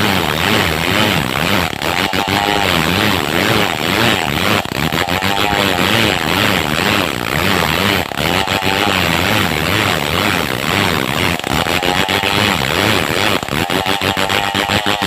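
Two-stroke chainsaw running at high revs while cutting lengthwise through a squared log of madang wood. The engine pitch wavers up and down as the chain bites and eases in the cut.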